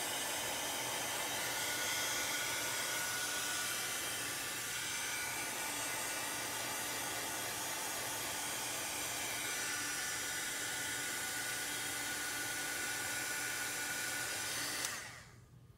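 Handheld craft dryer blowing hot air steadily to dry wet ink on a fabric banner, with a faint low hum under the rushing air. It switches off sharply about a second before the end.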